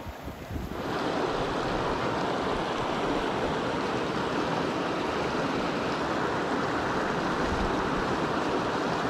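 Stream water running over rocks, a steady rushing that comes in suddenly about a second in. Before it, wind gusts buffet the microphone.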